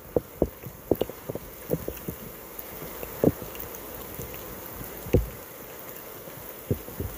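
Storm rain setting in: a steady hiss that slowly builds, with scattered sharp knocks and thuds close to the microphone, the loudest about three and five seconds in.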